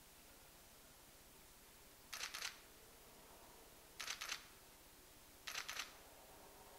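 Camera shutter firing three times, a second and a half to two seconds apart, each shot a quick double click, over faint steady room tone.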